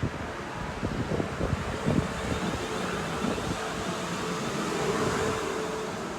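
Class 450 electric train moving through the station: wheels on the rails with uneven low thumps for the first couple of seconds, then a steadier running noise with a faint hum. Wind on the microphone.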